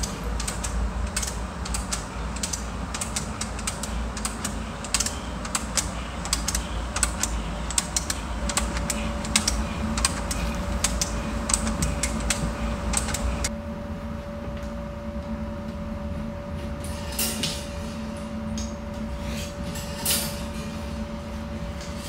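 Hand-cranked wooden and metal homemade sound machines clicking and rattling in a dense run, which thins out about halfway through; a steady tone joins about eight seconds in.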